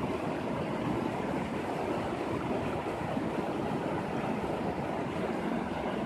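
Shallow rocky mountain river rushing over stones: a steady, unbroken sound of flowing water.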